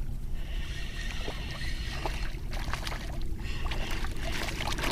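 Water and handling noise on a fishing kayak: a steady low rumble with many small splashes, taps and clicks scattered throughout.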